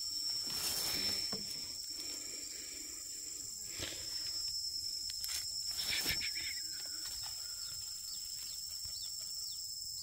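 Steady high-pitched insect drone. Over it come a few short knocks and rustles from handling near a nestlings' cup nest, and near the end several faint, brief, high sliding calls.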